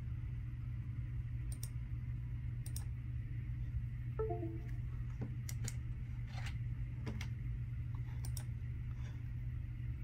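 Scattered light clicks, one or two at a time, over a steady low hum, with a brief run of faint short tones about four seconds in.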